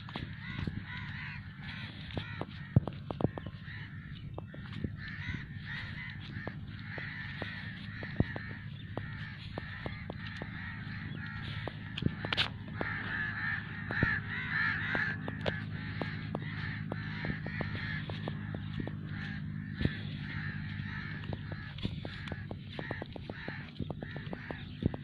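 A flock of birds calling: many overlapping calls and chatter, busiest about halfway through, over a steady low hum.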